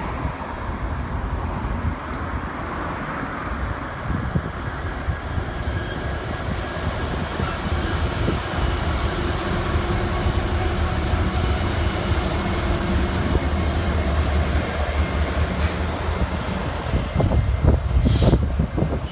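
Three Union Pacific diesel-electric locomotives running light, with no cars, passing slowly at close range. The diesel engines drone steadily and the wheels roll on the rails, getting a little louder in the last few seconds.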